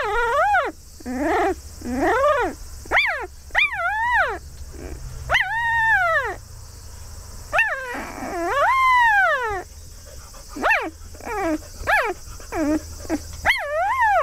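Four-day-old field-type Labrador Retriever puppy crying for its mother: a string of high, arching whines that rise and fall in pitch, about one a second, with a longer drawn-out cry about eight seconds in. This thin squealing cry is typical of a newborn puppy.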